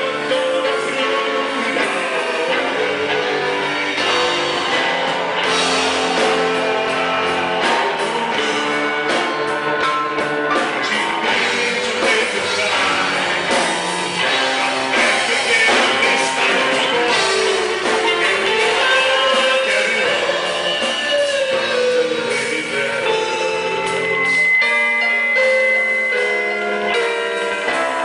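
Rock band playing a song with singing, guitar and drums. About three-quarters of the way through, the bass and drums drop out, leaving guitar and a held high note.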